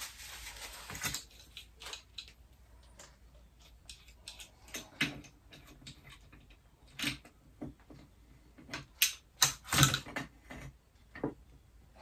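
A brief rag rustle at first, then irregular light metallic clicks and clinks of a spanner and a copper-slipped threaded fitting being worked onto a Chapman strut, with a quick run of sharper clicks about nine to ten seconds in.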